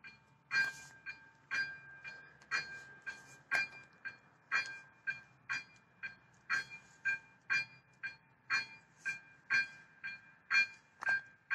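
Electronic warning bell of an AŽD 97 railway level crossing ringing in a steady rhythm of about two strikes a second, alternating stronger and weaker. The crossing is active, warning of an approaching train.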